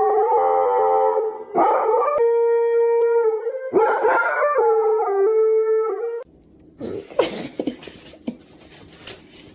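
A dog howling in several long, held notes that waver in pitch, stopping about six seconds in. After that come fainter knocks and rustling.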